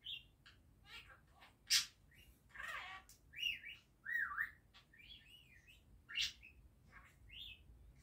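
Budgerigar chattering: scattered short chirps and sharp calls, with a run of wavering, warbling notes in the middle. The sharpest calls come about two seconds in and about six seconds in.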